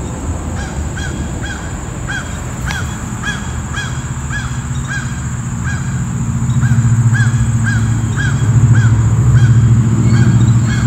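A bird calling over and over in short chirps, about two or three a second, over a steady high insect drone. A low hum swells in about halfway and becomes the loudest sound.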